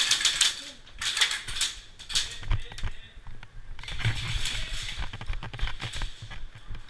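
Airsoft guns firing in short rapid bursts of clicks, several bursts one after another.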